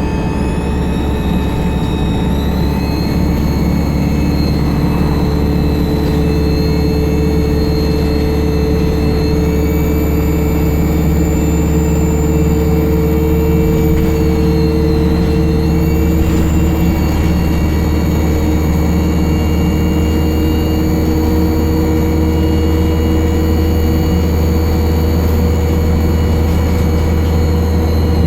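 ADL Enviro 200 bus (ADL E20D) running with a loud turbocharger whistle: several high whining tones rise and fall with the engine's speed over a steady low engine drone, climbing a few seconds in and again about halfway through, with a brief dip just before.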